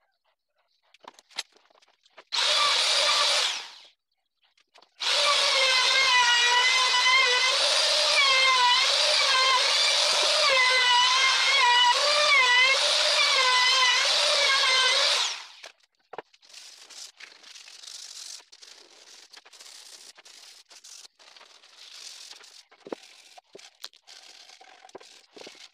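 Handheld trim router runs briefly, stops, then runs for about ten seconds with a high whine that dips in pitch again and again as the bit bites into the edge of a hardwood board. After it stops, light rustles and clicks as sawdust is brushed off the board.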